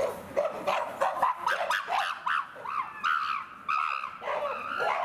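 Chimpanzees screaming: a rapid string of short, high yelping calls that rise and fall in pitch, several a second, with calls overlapping around the middle.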